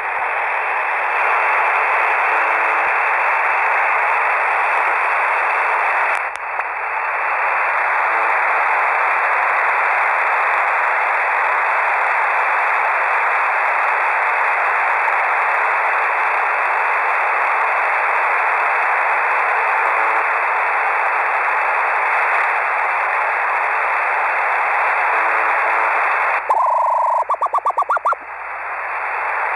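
Shortwave radio receiver tuned to UVB-76, 'the buzzer', giving a steady hiss of static. About 27 seconds in, a short run of rapid beeping pulses cuts through.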